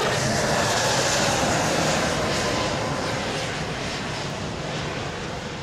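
Twin Allison T56 turboprop engines of a C-2 Greyhound running as it taxis: a loud, steady engine noise with a faint even hum through it, slowly growing quieter from about halfway through.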